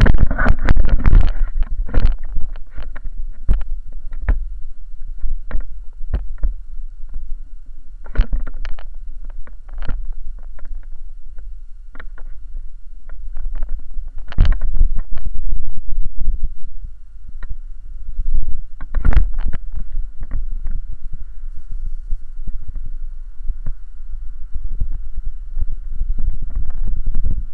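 Inline skate wheels rolling over rough pavement in a continuous low rumble, with irregular knocks and rattles from the handheld camera pole.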